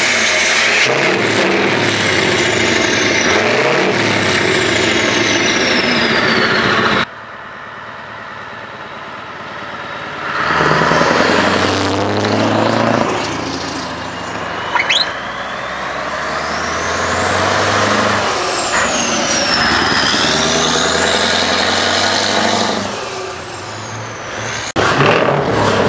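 Heavy diesel trucks with loud exhaust pipes revving hard while their drive wheels spin in smoky burnouts, one truck after another. A high whistle glides down during the first truck's run and rises and falls during the next.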